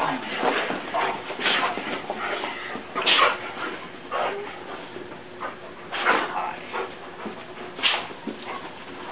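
Dogs whimpering and whining excitedly in short, repeated bursts: an excited greeting for an owner back after a long absence.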